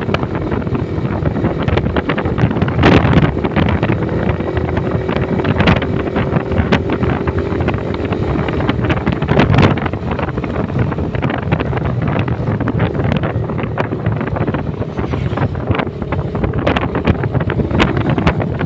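Wind rushing over the microphone of a moving motorcycle, with the engine running underneath. A few sharp knocks come through along the way.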